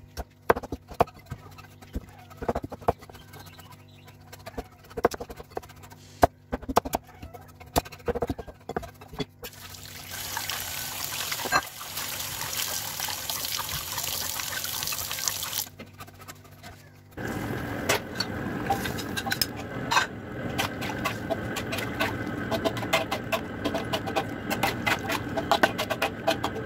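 Knife blade chopping young papaya on a wooden board in irregular sharp knocks. After that, running water splashes steadily over the cut pieces for about six seconds. From about two-thirds of the way in, a wok of chicken and papaya in sauce simmers with a steady bubbling hiss, dotted with small clicks and scrapes of a metal spatula.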